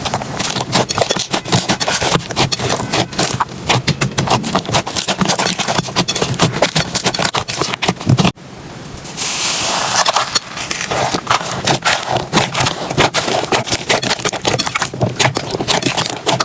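Slime being squished and pressed by hand, with dense crackling and popping. It breaks off briefly about eight seconds in, then resumes with a hissing stretch before the crackling returns.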